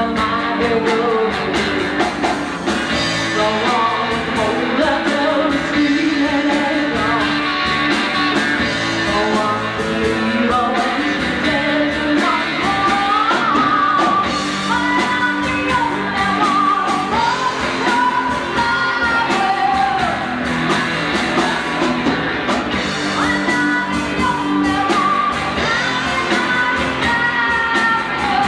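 Rock band playing live, a woman singing lead over electric guitars, bass guitar and drum kit.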